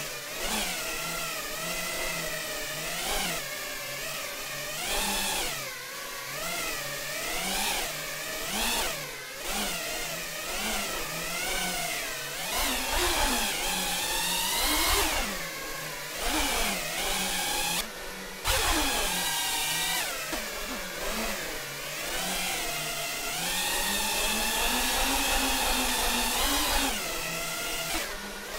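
FPV quadcopter's brushless motors and propellers whining, the pitch sweeping up and down again and again as the throttle is punched hard, with a brief drop about two-thirds of the way through.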